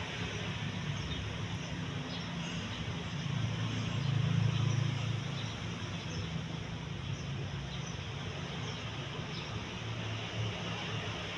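A 42-inch Atlantic Air Alaska Kiev ceiling fan running: a steady rush of moving air over a low motor hum, which swells briefly about four seconds in.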